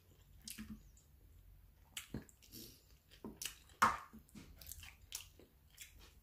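A person chewing a mouthful of soft taco, with scattered short wet smacks and clicks of the mouth.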